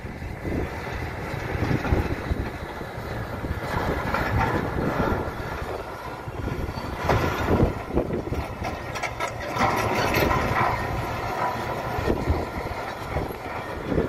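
Komatsu D85 crawler bulldozer working: the diesel engine runs under load while the steel tracks clank and rattle as it pushes a blade of soil. It is loudest about halfway through as the machine comes closest, then eases off a little as it moves away.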